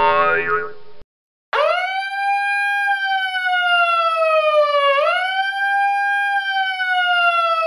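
A long canine-like howl, with a quick rise at the start, a slow fall, a dip and swing back up about 5 seconds in, then a long fall that fades at the very end. A short, separate pitched call comes first, with a half-second gap before the howl.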